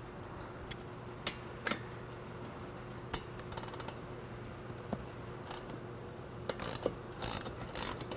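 Ratchet wrench with a 3/4-inch socket being fitted onto a steel bolt and worked to loosen it: faint, scattered metal clicks and clinks, with short runs of quick ratchet pawl clicks about midway and near the end.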